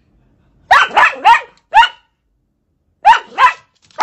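Dachshund barking in short, sharp yaps: four quick barks about a second in, then two more near the end.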